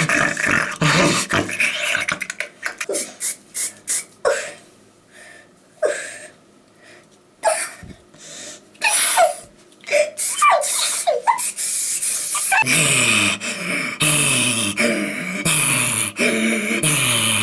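A person making strange mouth and throat noises: clicks and short squeaky falling whistles with pauses between them. About two-thirds of the way in, this gives way to a continuous pitched warble made of quick repeated falling slides.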